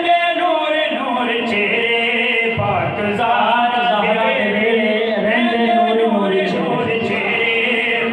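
Men's voices chanting a melodic devotional recitation, with long held notes that waver in pitch.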